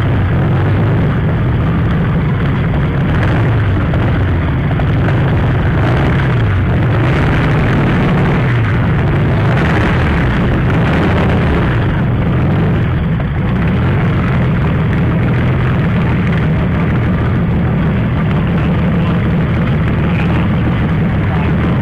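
A large piston engine running hard with a deep, dense sound; its low pitch wavers up and down every second or two.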